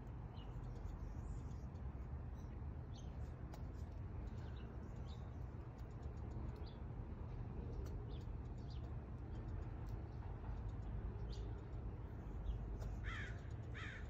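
Tree squirrel alarm calling: short high chirps every second or so, then two louder, harsh falling calls near the end.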